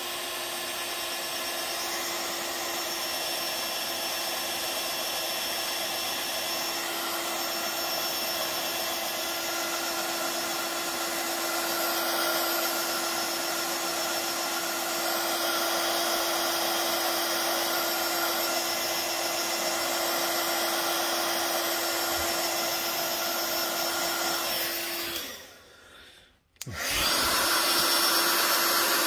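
Handheld hot-air dryer blowing steadily over a painted styrene panel to dry the paint, with a steady motor hum under the rush of air. It cuts out about 25 seconds in and comes back on a second later.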